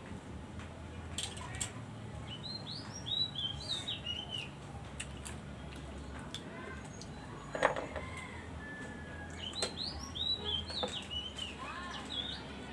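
A songbird sings two short runs of quick chirping notes, one about two and a half seconds in and another near ten seconds. Scattered light clicks from scallop shells being handled, with one sharper knock in between.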